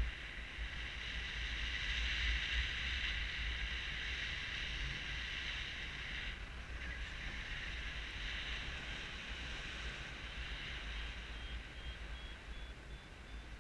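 Airflow of gliding flight rushing over a paraglider harness camera: a steady hiss with a low buffeting rumble on the microphone, easing slightly about halfway through.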